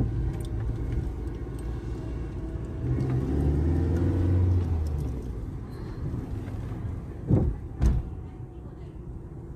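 Car engine and road noise heard from inside the cabin while driving slowly, the engine note growing louder for a couple of seconds midway. Two sharp knocks about half a second apart near the end are the loudest sounds.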